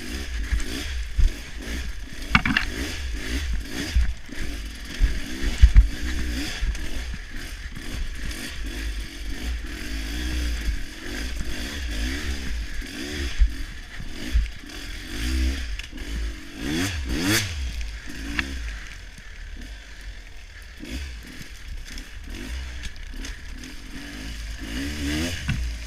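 Honda XR250 Tornado trail motorcycle's single-cylinder four-stroke engine, bored to 280cc, revving up and falling back again and again while riding a dirt trail, with low wind rumble on the microphone and the bike rattling and knocking over rough ground.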